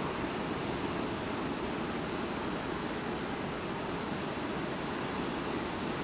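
Rough sea surf breaking and washing steadily near the shore, churned up by typhoon swell.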